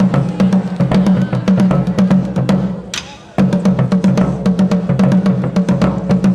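Background music with fast, driving drums over a steady bass line. About halfway through, the beat fades and drops out for a moment, then comes straight back in full.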